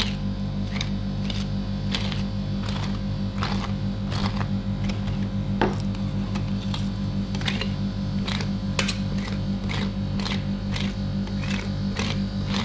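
Metal spatulas tapping, chopping and scraping on the frozen steel plate of a rolled-ice-cream pan, a sharp click or scrape every second or so, over the steady low hum of the pan's cooling machine.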